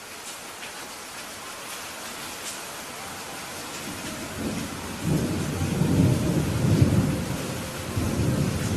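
Steady rain falling, with thunder rumbling in about halfway through, loudest a little past the middle, and a second swell of rumble near the end.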